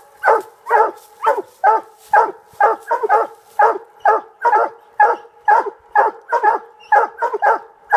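Coonhounds barking rapidly and steadily at a tree, about two to three barks a second, the sound of dogs that have treed a raccoon.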